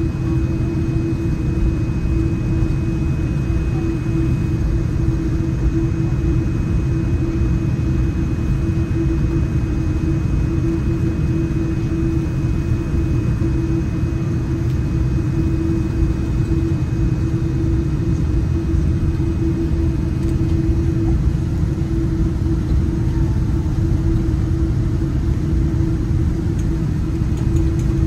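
Steady rumble and constant hum inside the cabin of a Boeing 787-9 Dreamliner taxiing on the ground, with a faint steady high whine above it.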